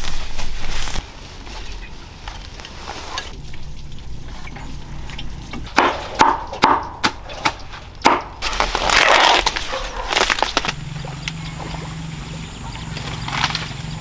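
A cleaver chopping leafy greens on a board: several sharp chops in quick succession in the middle, among softer rustling. A steady low hum comes in near the end.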